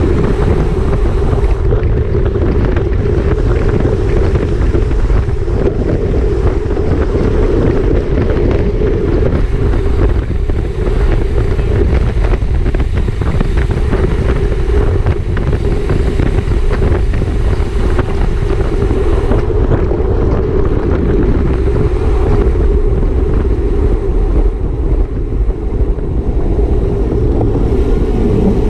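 Wind rushing over the microphone of a camera on a bicycle racing at speed: a loud, steady rumble and rush.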